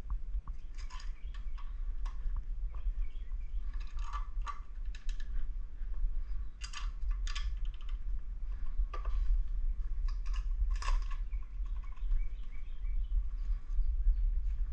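Scattered light clicks and scrapes of gloved hands fitting an outboard's water pump housing and gaskets over the driveshaft, over a steady low rumble.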